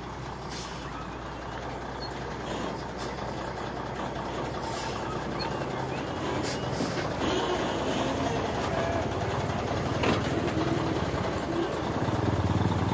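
Large truck's engine running as the truck is steered into position, getting louder near the end, with people's voices around it and a sharp knock about ten seconds in.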